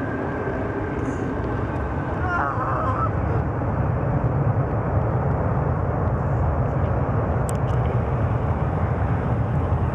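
Airbus A330 jet engines rumbling as the airliner rolls out after landing: a steady low rumble that grows a little louder about four seconds in, with a thin high engine whine fading out in the first couple of seconds.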